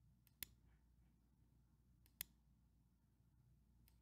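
Three computer mouse clicks over near silence, each a quick double tick of a button pressed and released: the first a little under half a second in, the second just after two seconds, and the third near the end.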